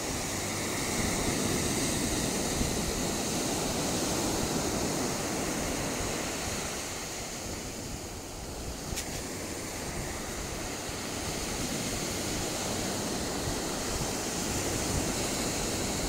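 Ocean surf breaking and washing up the beach: a steady rushing wash that swells and eases, with some wind rumble on the microphone.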